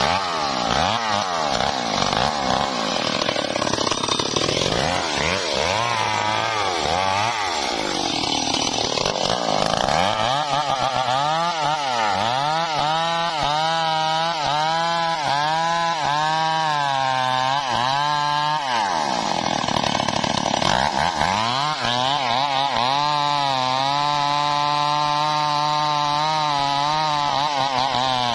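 Stihl two-stroke chainsaw cutting into the base of a standing tree trunk. Its engine speed rises and falls over and over as the chain bites into the wood and frees up again, and runs steadier near the end.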